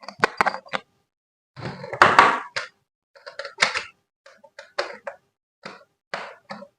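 Hands handling a boxed toy and its packaging: irregular clicks, knocks and rustles, with a longer rustle about two seconds in.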